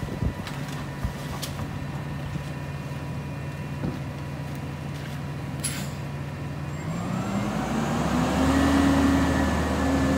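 Rear-loader garbage truck's engine idling steadily while recyclables are tipped from a bin into the hopper, with a few sharp clatters. About seven seconds in the engine revs up, rising in pitch and getting louder, as the truck pulls away.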